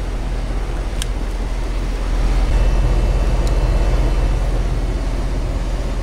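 Heat pump outdoor unit running steadily, a compressor hum with fan noise, freshly recharged with refrigerant and running in heating mode. A sharp click comes about a second in, and the hum grows a little louder about halfway through.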